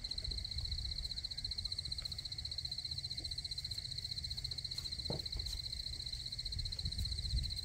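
A chorus of frogs calling, a steady high-pitched trill that doesn't let up, over a low rumble. A single soft knock about five seconds in.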